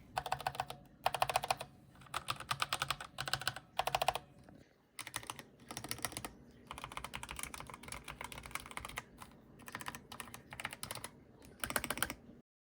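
Mechanical keyboard being typed on in bursts of rapid key clicks, each burst a second or so long with short pauses between. The sound changes character about five seconds in and stops abruptly near the end.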